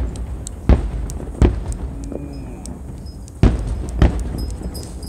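Aerial firework shells bursting at a distance: five deep booms in about four seconds with a low rumble between them, and a run of small crackling pops near the end.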